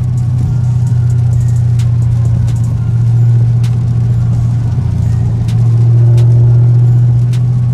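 Chevrolet Camaro ZL1's supercharged 6.2-litre V8 cruising at steady speed, heard inside the cabin as a steady low drone, swelling slightly a couple of times. Faint scattered ticks lie over it.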